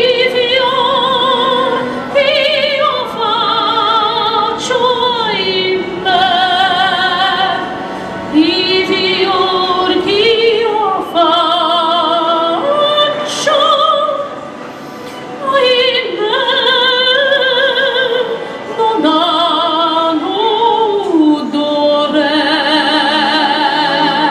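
A woman singing solo into a handheld microphone, amplified: phrases of long held notes with a wide vibrato, gliding up and down between notes.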